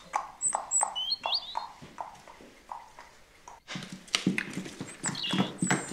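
Clip-clop hoofbeat sound effect for a riding horse: a steady run of short clicks about four a second, getting busier in the second half. A few faint, high chirps sound over the first second and a half.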